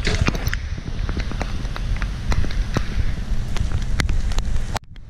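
Storm wind buffeting the camera microphone as a heavy low rumble, with raindrops ticking irregularly on the camera. The sound cuts out abruptly for a moment near the end.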